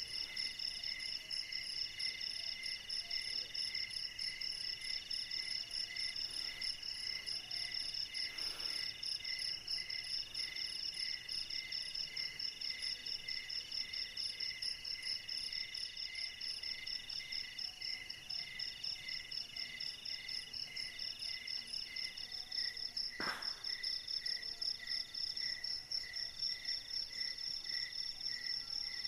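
Night chorus of crickets and other insects: several overlapping calls at different pitches pulse evenly, with a high one pulsing fast and a lower one chirping about twice a second. A brief sharp tick comes about three-quarters of the way through.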